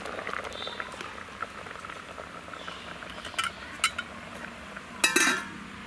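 Stainless-steel kitchen utensils clinking: a few light taps of metal on metal, then a louder ringing clatter about five seconds in.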